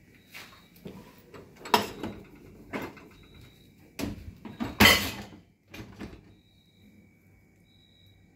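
A handful of sharp knocks and rattles from a glass door being handled, the loudest about five seconds in, over a faint steady high whine.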